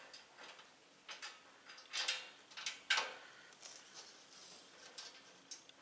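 Irregular light metallic clicks and clinks of bolts, washers and nuts being fitted by hand into the panels of a steel welding cart, with louder knocks about two and three seconds in.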